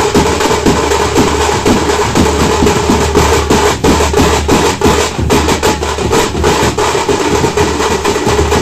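A group of Tamil thappu (parai) frame drums played together in a fast, dense, loud beat.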